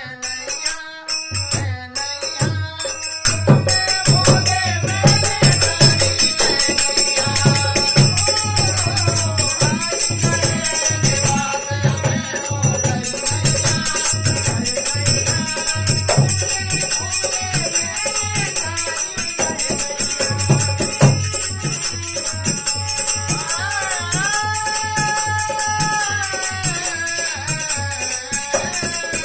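Indian devotional bhajan music: a jingling rattle-and-tambourine rhythm over a steady low drum beat, with a gliding melody line on top. After a few sparse strikes, the full band comes in about three seconds in.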